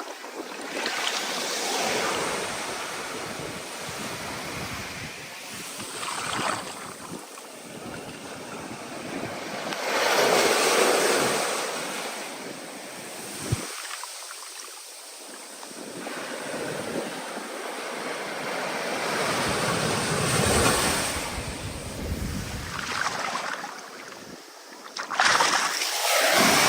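Ocean waves breaking and washing in under a stormy wind, surging and fading in about five swells, the biggest about ten seconds in and near the end.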